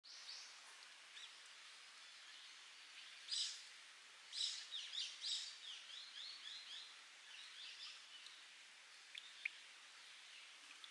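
A wild bird calling over a faint steady hiss of trickling spring water: a sharp call about three seconds in, then a quick run of short falling notes, then a few scattered chirps near the end.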